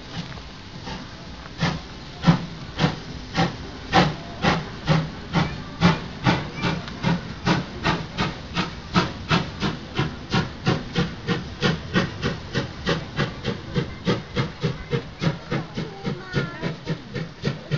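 Steam locomotive pulling a passenger train away, its exhaust chuffing in even beats that quicken from about two to about three a second as it gathers speed. The beats grow fainter toward the end as it draws away.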